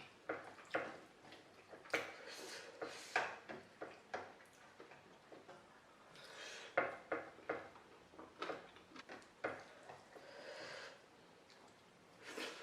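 Close-miked eating: chewing and crunching mouthfuls of food, with light clinks of dishes and cutlery.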